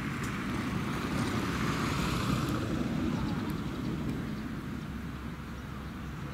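Low rumble of a passing motor vehicle, swelling to its loudest a couple of seconds in and then fading.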